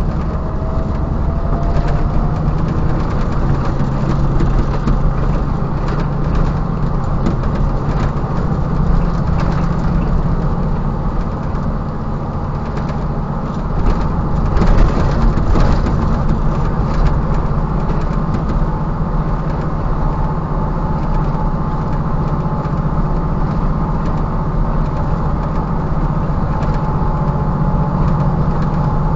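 Mercedes-Benz Unimog's diesel engine running steadily at cruising speed on a dirt road, with rattles and knocks from the truck, a cluster of them loudest around halfway.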